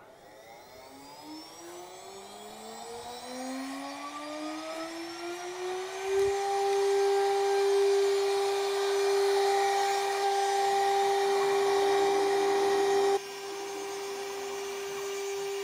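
CNC router spindle spinning up: a whine rises in pitch over about six seconds, then holds steady at 24,000 rpm. The cutter is running free above the wood and not yet cutting.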